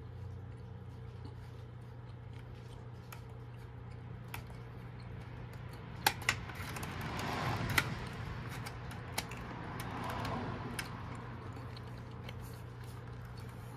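Rocker power switch of a Triton TRJ001 router clicked several times while the router stays dead, with no motor run-up: the owner puts this down to a failed speed controller. A steady low hum runs underneath, with some soft rustling between the clicks.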